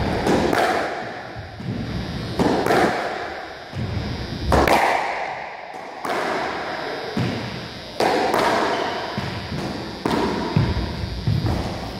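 Squash ball struck by racket and slamming into the court walls: sharp thuds echoing around the enclosed court, one every second or two.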